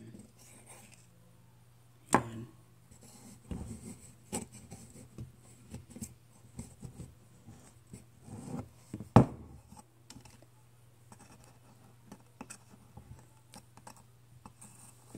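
Stainless-steel kettle being handled: scattered small clicks, knocks and rubbing of its hinged metal handle, lid and spout flap. There is a sharp knock about two seconds in and a louder one about nine seconds in.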